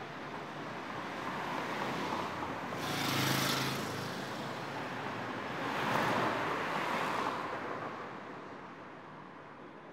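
Street traffic: cars passing, one swelling past about three seconds in and another about six seconds in, over a steady hiss of road noise that fades down near the end.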